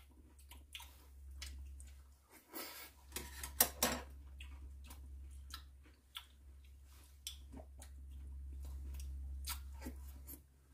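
Two people eating pumpkin porridge with fruit: quiet chewing, with spoons and chopsticks clicking against the bowls now and then, loudest about three and a half seconds in. A steady low hum runs underneath.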